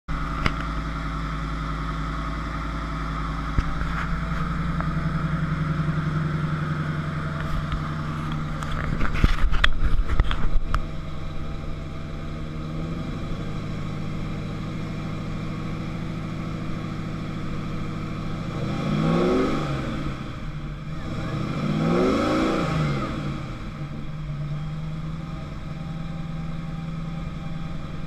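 First-generation Chevrolet Camaro's engine idling steadily, with a short burst of knocks and rattles about a third of the way through. It is revved twice about two-thirds of the way through, the pitch rising and falling each time before settling back to idle.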